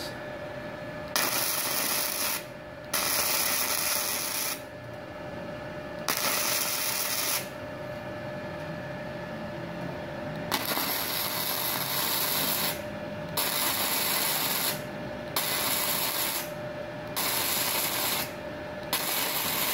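Gasless flux-core MIG welding arc crackling and hissing from a MultiPro 160 inverter welder at about 40 amps, laid down in about eight short runs of one to two seconds each with brief pauses between.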